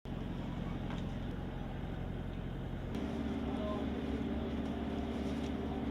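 Steady low drone of a running vehicle engine, its sound changing abruptly about three seconds in.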